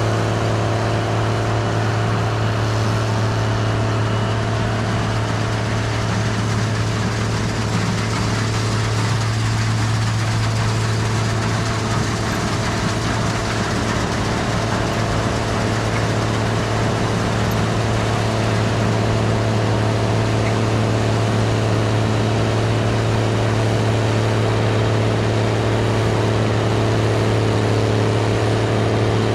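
Gleaner R72 combine running steadily while harvesting rye: an even engine and machinery drone with a strong low hum.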